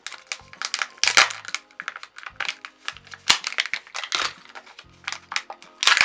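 Foil wrapper of a Kinder Joy egg crinkling and tearing as it is peeled off by hand, in quick sharp crackles, then the foil seal of the plastic capsule peeled back. Background music with a low repeating pulse plays underneath.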